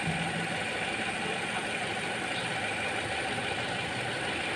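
Toyota Altis car engine idling steadily, its coolant bubbling without letup while the cooling system is bled, which the owner takes for a damaged head gasket or warped cylinder head.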